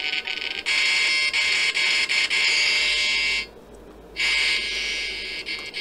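Hissing static with faint steady whines from a DIY kit FM radio's small speaker as it is retuned between stations. The noise cuts out for a little over half a second about three and a half seconds in, then returns.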